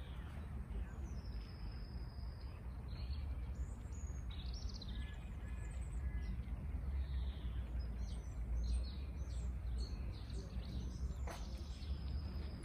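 Songbirds chirping and whistling in the trees, short calls scattered throughout, over a steady low rumble. A single sharp click comes near the end.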